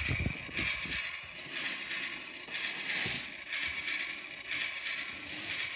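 Toy train locomotive's small motor and gears whirring as it runs, with a few low thumps in the first second and another about three seconds in.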